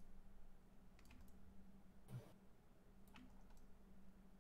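Near silence: a few faint, scattered clicks of a computer mouse and keyboard over a faint steady hum.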